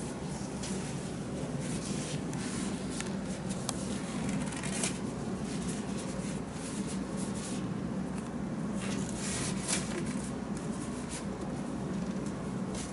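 Scattered light rustles and taps of a paper towel and disposable plastic gloves being handled, over a steady low room hum.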